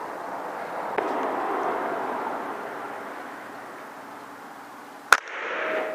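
Steady background noise with a faint click about a second in, then about five seconds in a single sharp crack from an air rifle firing.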